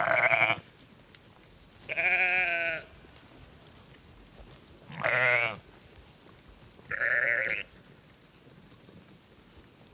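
Sheep bleating four times. Each baa is a quavering call of just under a second, and the calls come about two to three seconds apart.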